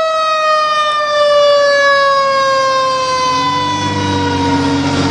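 Fire truck siren winding down slowly and steadily in pitch. From about halfway in, the heavy truck's engine rumble and road noise grow louder as it passes.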